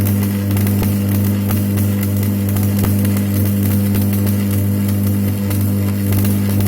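Manual arc welding with a flux-coated stick electrode on a steel butt joint: the welding set hums steadily while the arc crackles with faint irregular clicks.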